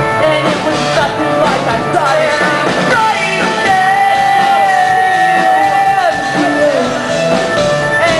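Rock band playing live, with electric guitar and a lead vocal that holds one long note for about two and a half seconds in the middle.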